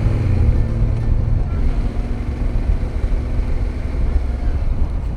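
Motorcycle engine running with a steady low rumble, loudest in the first second or so, with wind noise on the microphone.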